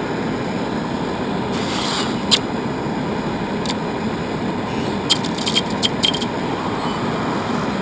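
A metal-melting furnace running with a steady rushing roar, under a few sharp metallic clicks and scrapes: one about two seconds in, another a little later, and a quick cluster of clicks about five to six seconds in.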